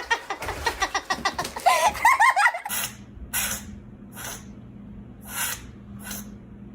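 A pet sneezing repeatedly, five short sharp sneezes about a second apart, over a steady low room hum. Before them, a few seconds of laughing, wavering voices.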